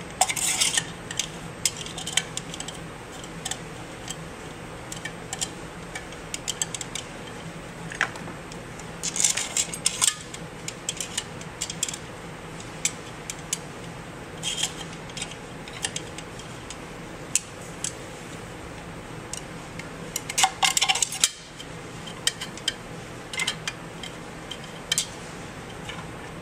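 Steel motor bolts clicking and clinking against the motor's end housing as they are lined up, threaded in and turned, in scattered light clicks with a few short runs of clinking.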